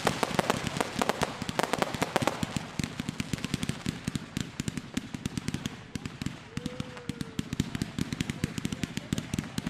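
Fireworks crackling: a rapid, dense run of small sharp bursts, loudest over the first two seconds or so and then thinning out.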